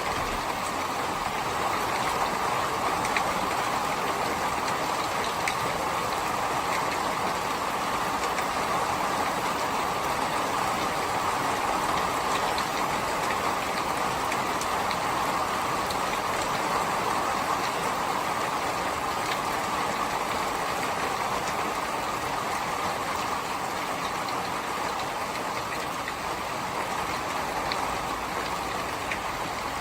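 Steady rain: an even hiss, with small drop ticks scattered through it.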